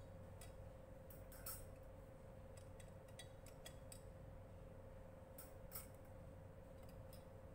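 Faint, scattered light clicks of metal tongs against glass test tubes and a wire test-tube rack, over a steady faint hum.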